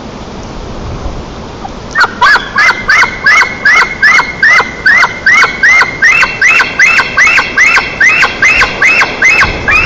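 Electronic alarm siren starts about two seconds in and sounds in rapid repeating chirps, about three a second, shifting to a higher tone about six seconds in.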